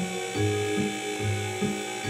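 Upbeat cartoon background music with a bouncing bass line, notes changing about twice a second, over a steady high mechanical whine.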